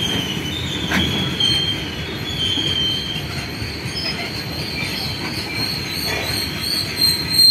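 BOXN open freight wagons rolling past on steel rails: a steady rumble of wheels with thin, high, wavering squeals from the wheels. There is a single knock from the wheels about a second in.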